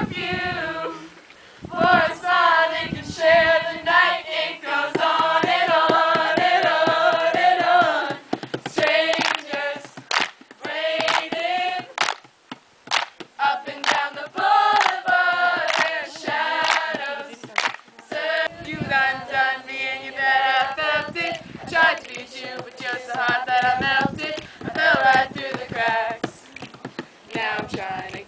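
A group of voices, many of them women's, singing a song together, with hand claps through it.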